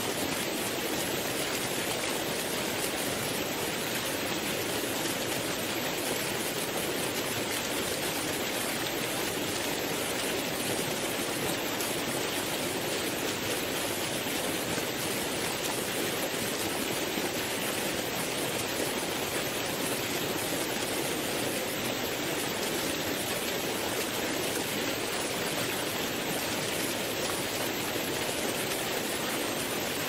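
Waterfall: a steady, unbroken rush of falling water, hissy rather than deep, with no change in level.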